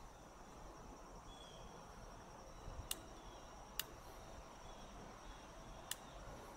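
A few sharp single clicks a second or two apart as the toggle switch and power lead of a small diaphragm water pump are worked; the pump stays silent, not yet getting power. Faint insect chirping underneath.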